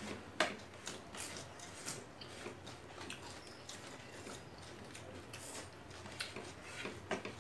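Eating sounds from a meal eaten by hand: scattered soft clicks and smacks of chewing mixed with fingers scraping food on ceramic plates, the sharpest click about half a second in.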